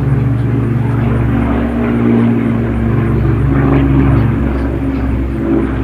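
Rolls-Royce Merlin V12 piston engine of a WWII warbird in flight, a loud, steady propeller drone with a slight waver in pitch.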